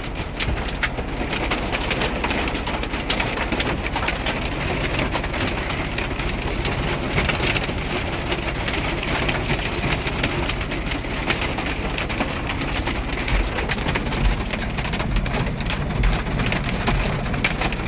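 Hail and wind-blown ice pelting a semi truck, a dense, steady patter of many small clicks and pops over a low rumble.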